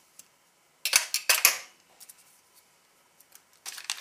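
Case pocketknife slicing open a foil-laminate MRE snack bread pouch: a sharp, crackly burst of cutting and crinkling about a second in, a few light ticks, then more crinkling near the end.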